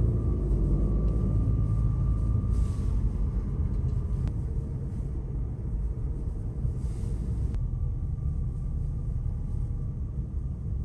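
Steady low rumble of a car driving, with road noise filling the bass, that starts and stops abruptly.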